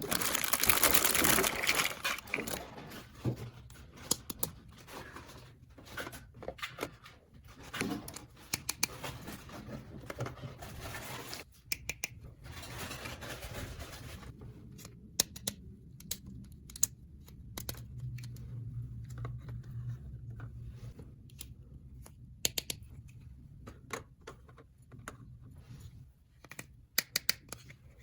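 Plastic toy pieces being handled: many light clicks and taps, with stretches of rustling packaging, the loudest in the first two seconds and again from about ten to fourteen seconds in.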